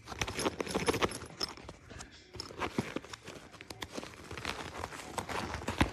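Irregular clicks, taps and rustling, with a short lull about two seconds in.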